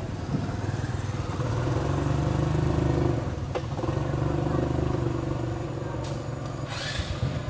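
A motor engine running, growing louder twice as if passing, with a short hiss near the end.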